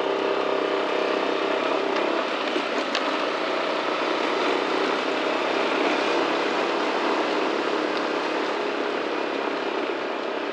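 Yamaha motor scooter riding along: engine running under a steady rush of wind on the microphone.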